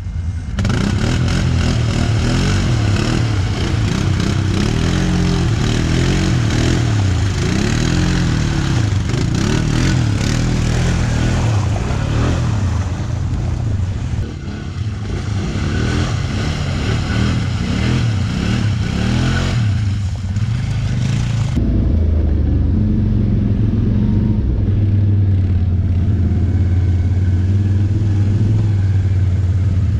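ATV engines revving hard through mud, the engine note rising and falling over and over. About two-thirds of the way through the sound changes abruptly to a steadier, lower engine drone of a quad riding along the trail.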